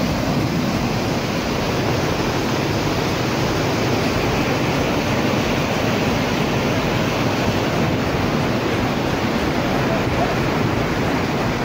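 Muddy floodwater from snowmelt rushing past a road edge in a fast torrent: a steady, loud rush of water.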